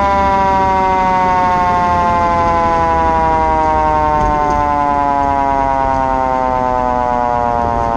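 Fire engine siren holding one long tone that falls slowly and steadily in pitch, over low engine and road noise.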